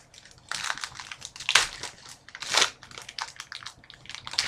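Trading card pack wrapper being torn open and crinkled by hand, in a series of irregular rustles.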